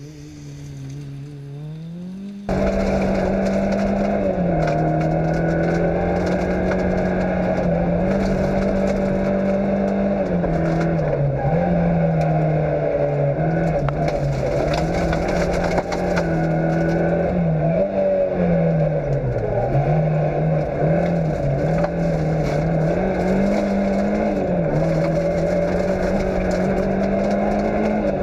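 Fiat Cinquecento rally car's engine running hard on a gravel stage, its pitch rising and dipping repeatedly with gear changes and throttle lifts, over steady gravel and tyre noise. It starts fainter and rising, then turns abruptly much louder about two and a half seconds in.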